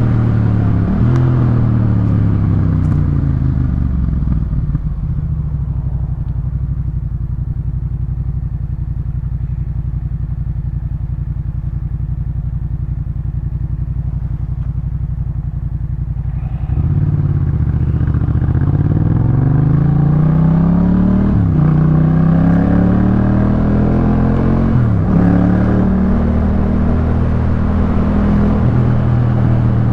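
Yamaha MT-07 parallel-twin engine through a Jeskap K4 full aftermarket exhaust. The revs fall over the first few seconds, then the engine runs steadily at low revs for about twelve seconds, becoming louder about seventeen seconds in. The revs then climb three times, dropping between each rise as the gears change, and the engine settles into a steady cruise near the end.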